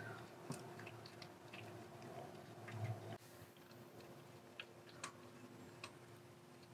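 Faint, irregular small metallic clicks and ticks as a loosened E10 bolt holding the coolant hard pipe to the engine block is turned out by hand.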